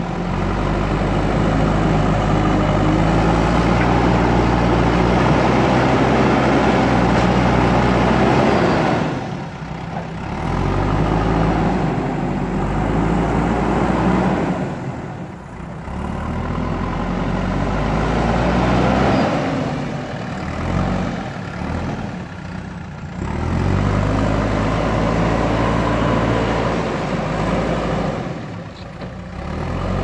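JCB backhoe loader's diesel engine running under load as it pushes mud with its front bucket. The revs drop briefly four times and then pick up again.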